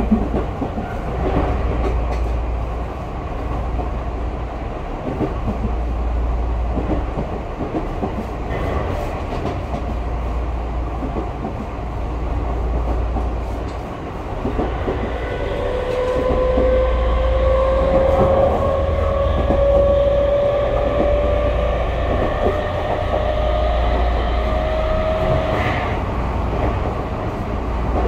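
Tokyu 5000 series electric train running, heard from inside the passenger car: a steady low rumble with the wheels clicking over rail joints. From about halfway a whine rises steadily in pitch as the train picks up speed, then stops shortly before the end.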